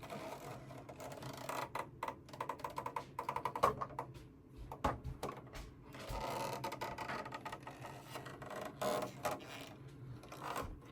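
Mechanical clicking and rattling, quick and irregular a couple of seconds in, then a steadier whirring noise, with more clicks near the end.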